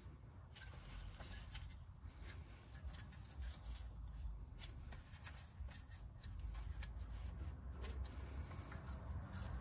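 Faint rustling and small scattered clicks of a gloved hand handling a clutch pressure plate and its mounting bolts on the flywheel, over a low steady hum.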